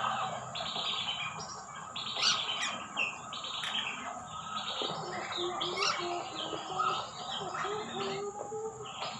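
Several birds calling at once: many quick high chirps and squawks, joined from about halfway through by a run of short low steady hooting notes.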